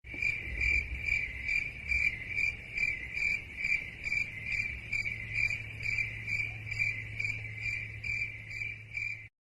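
Crickets chirping in a steady rhythm of about two and a half chirps a second over a faint low hum, cutting off suddenly near the end. This is the stock crickets sound effect used in memes to signal an awkward silence.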